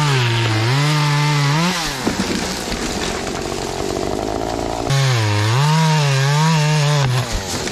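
Beta 200RR two-stroke single-cylinder dirt bike engine under throttle, its pitch rising and falling repeatedly. About two seconds in it drops to a rougher, lower running, and the rising and falling pitch comes back about five seconds in.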